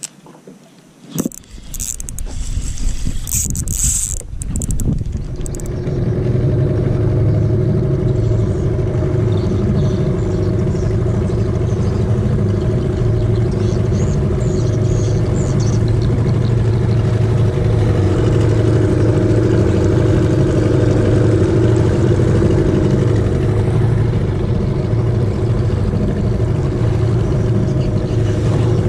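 A small boat's motor running at a steady speed while the boat is underway, a loud even drone. It sets in about five seconds in, after a few sharp knocks and bursts of noise.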